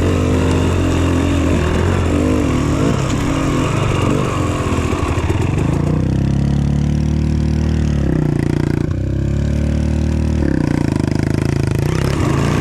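Dirt bike engine heard from on board while riding a trail, the throttle working up and down. The revs fall about halfway through, dip briefly near two-thirds in, then pick up again.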